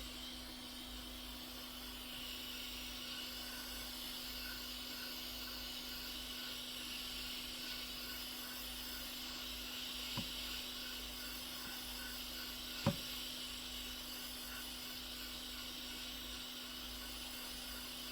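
Hot air blower running with a steady hiss, warming a glued phone part to soften the adhesive before it is peeled off. Two light clicks about ten and thirteen seconds in.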